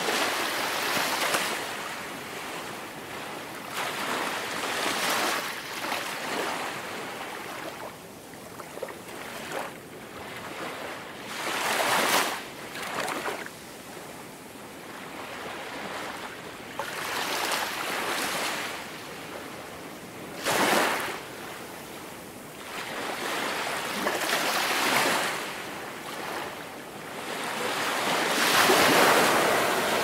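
Ocean surf: waves breaking and washing in, a hiss that swells and fades every few seconds. Sharper crashes come about 12 and 21 seconds in, and a long, loud surge near the end.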